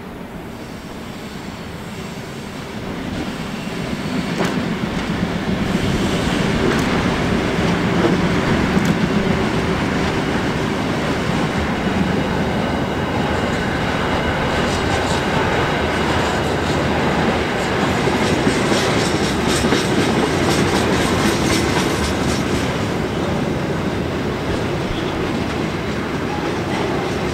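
Grain train rolling past. The sound builds over the first few seconds, then holds as a steady heavy rumble of wagon wheels. Rapid clickety-clack over the rail joints is thickest past the middle.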